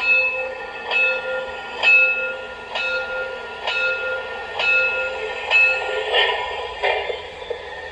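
Recorded train sounds played from a cheap MP3 player: a ringing tone struck about once a second, then two hissing bursts near the end.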